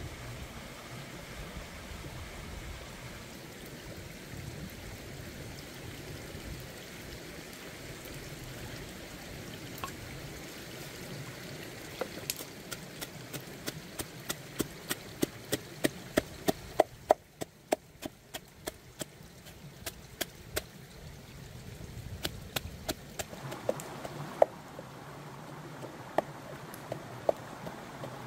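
A stream runs steadily over rocks. About twelve seconds in, a wooden pestle starts pounding chilies in a mortar, with sharp knocks about twice a second. The knocks thin out near the end.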